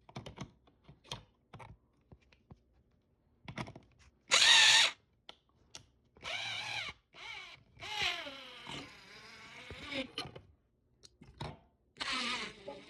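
Power drill running in several short bursts, with clicks between the trigger pulls; in the longest run the pitch falls.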